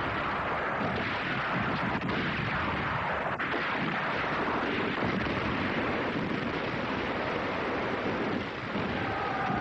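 Rocket-artillery barrage: a dense, continuous rushing roar of launches and blasts, with no single shot standing out.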